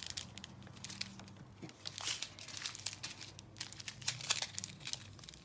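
Small plastic bags of resin diamond-painting drills crinkling and rustling as they are picked up and sorted, with irregular light clicks and rattles.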